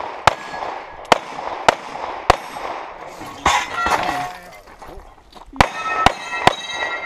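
Handgun shots from a practical pistol stage: four shots about half a second apart, a pause of about three seconds, then three quicker shots near the end. A ringing tone lingers after the last shots.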